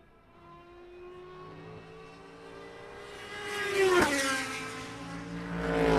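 Race cars at full speed passing close by one after another, engine note rising as each approaches and falling sharply as it goes past. The first passes about four seconds in, the second at the very end.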